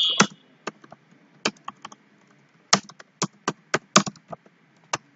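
Computer keyboard typing: irregular, uneven keystroke clicks, several a second, as a line of text is entered. A brief high electronic beep cuts off right at the start.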